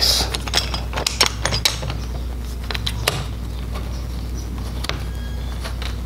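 Hand screwdriver turning the through-bolts of a Kwikset deadbolt: irregular light metal clicks and clinks, most of them in the first two seconds and one more around the three-second mark.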